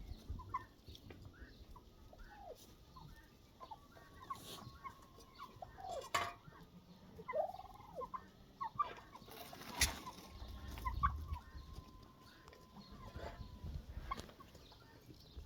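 Farmyard poultry calling: many short, separate calls overlapping one another. Two sharp knocks come about six and ten seconds in.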